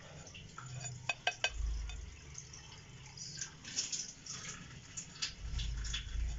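A few sharp clicks a little over a second in, then a granular hiss with small ticks as salt is poured from a plate into a glass bowl of spice powders.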